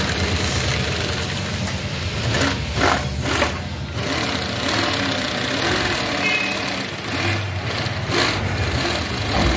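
Multi-needle industrial sewing machine running steadily, stitching a thick belt strip fed through a folder attachment.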